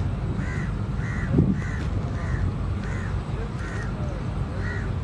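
Crows cawing: a run of short, harsh caws, about two a second, over a steady low rumble, with one low thump about a second and a half in.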